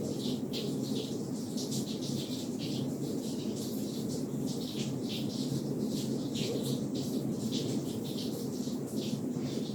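Amplified room tone: a steady low hum, with faint, irregular high-pitched ticks several times a second.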